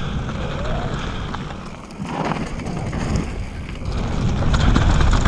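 Wind buffeting the camera microphone of a mountain bike descending a dirt trail, mixed with the tyres rolling over loose dirt and leaves. It dips briefly about two seconds in and builds again near the end as speed picks up.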